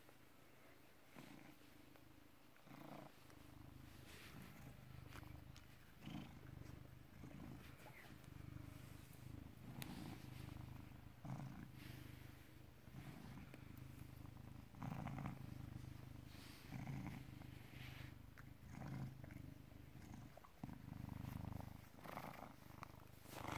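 British Shorthair cat purring close up, a soft low purr that swells and fades every second or two. It is faint at first and grows stronger after a few seconds.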